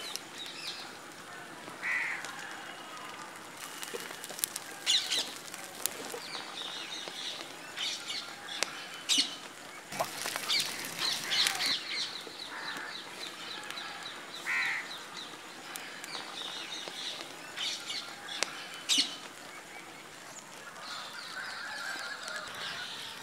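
Farmyard fowl calling on and off, with honking calls among other bird calls, and scattered sharp crackles between them.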